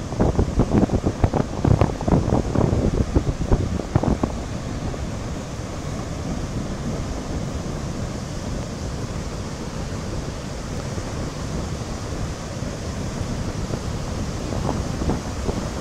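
Water released from a dam's gates rushing and churning over the spillway apron: a steady rush, with wind buffeting the microphone in gusts over the first four seconds or so and again near the end.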